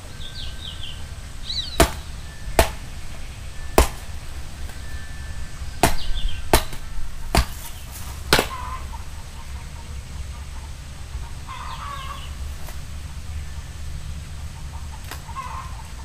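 Machete chopping a coconut open: about seven sharp strikes spread over the first eight seconds or so. Birds call now and then through it.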